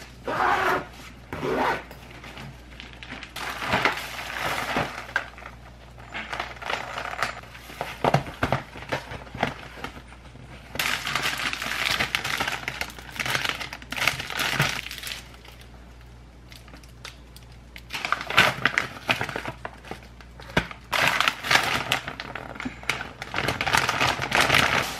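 Plastic bags and paper packaging rustling and crinkling in irregular bursts as groceries are lifted out of a delivery bag and handled.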